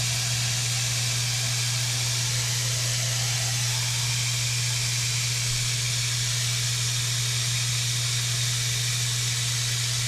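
Kitchen sink tap running steadily, a constant hiss of water pouring into the sink, with a steady low hum underneath. The water is run to test whether the unclogged gray-water drain now takes it.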